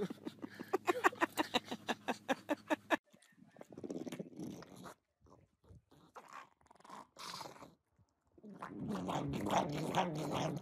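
A quick, even series of short pulses, about six a second, for the first three seconds. Then a pug crunching and chewing a piece of green vegetable in irregular bursts, with denser chewing near the end.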